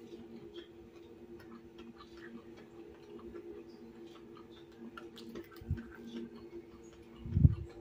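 Close-up mouth sounds of someone chewing fried meatball tofu and rice, with many small wet clicks. A low thump comes near the end, over a steady low hum.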